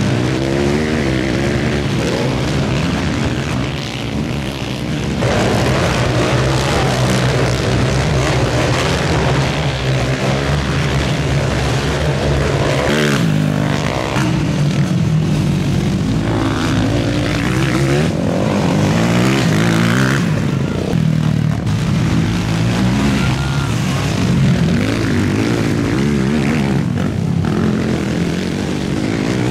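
Several ATV engines racing together, their revs rising and falling and overlapping as the quads accelerate and back off around the track.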